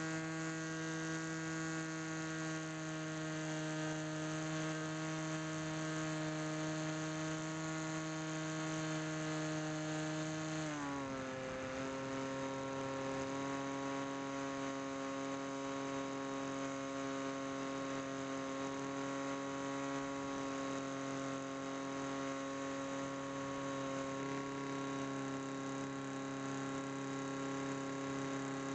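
The Bix3 RC plane's electric motor and pusher propeller whining steadily in flight, its propeller seriously damaged. About ten seconds in, the pitch glides down as the motor slows, then holds steady at the lower pitch.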